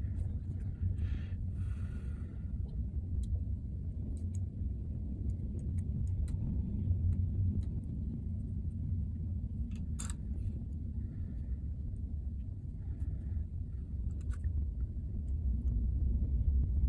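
Steady low background rumble with scattered small clicks and taps of tools and parts being handled during laptop disassembly, one sharper click about ten seconds in.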